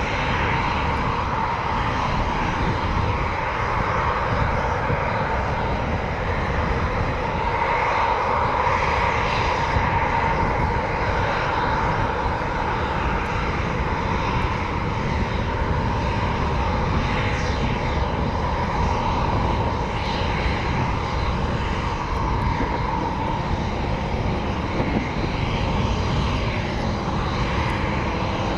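Military jet engines running steadily: a constant whine over an even rushing noise that neither swells nor fades.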